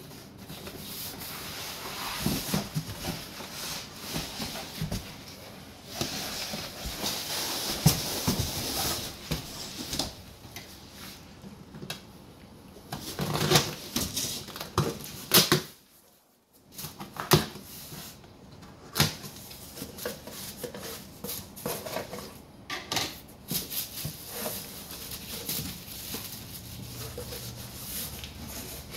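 Cardboard boxes being handled and opened: rustling and scraping of cardboard, packing tape slit with a knife, and flaps pulled open. Several sharp knocks and thuds stand out from the rustling.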